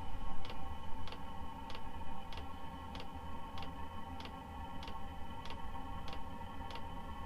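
Diesel air heater running: its fuel dosing pump ticks evenly about twice a second over the steady whine of the heater's fan and a low burner rumble.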